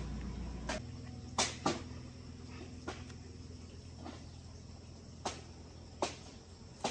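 An engine's low drone drops away about a second in, leaving a quieter steady hum. About eight sharp clicks or taps come at irregular intervals over it.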